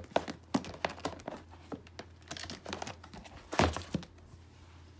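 Books and spiral-bound notebooks being handled and set into a clear plastic storage tote: paper rustling, with a string of light knocks and taps against the plastic. The loudest knock comes about three and a half seconds in.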